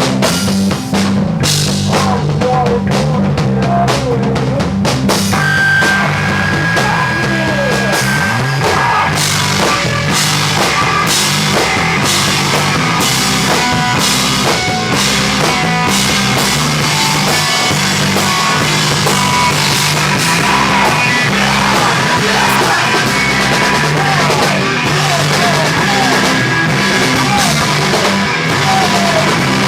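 A live rock band playing loud, with the drum kit prominent over a steady bass line. The sound fills out about five seconds in.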